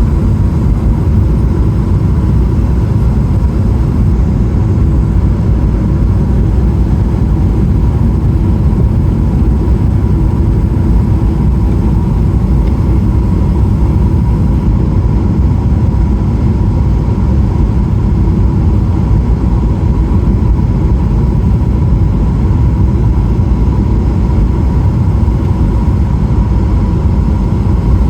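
Steady cabin noise of a Boeing 777-300ER airliner in motion: a deep, even rumble of engines and airflow with a faint steady high hum above it.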